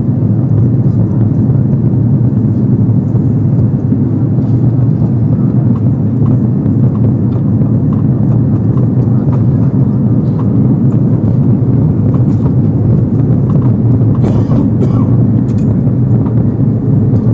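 Steady deep drone of an Airbus A330-300 cabin in flight: engine and airflow noise heard from a window seat, recorded loud and distorted.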